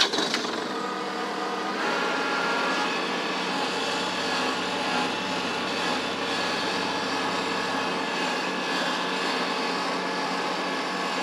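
Kubota compact tractor's diesel engine running steadily as the tractor drives across a pasture.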